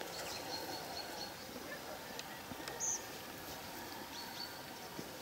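Quiet outdoor background with faint, thin high-pitched bird calls, and one short higher chirp just before three seconds in.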